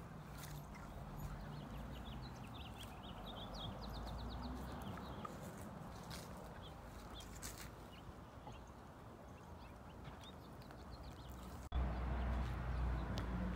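Outdoor yard ambience with footsteps and scattered clicks. A bird chirps a quick run of short notes about three to five seconds in. After a brief dropout near the end, a low rumble comes up louder.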